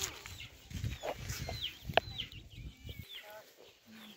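Short bird calls, clucks and chirps typical of village chickens, over a low rumble that stops abruptly about three seconds in.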